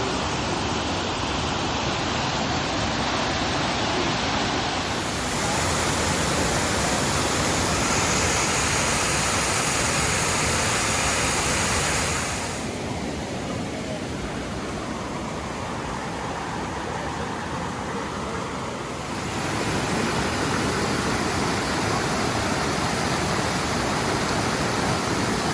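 Steady rush of water, like a waterfall or fast creek. It drops somewhat quieter for several seconds in the middle, then comes back up.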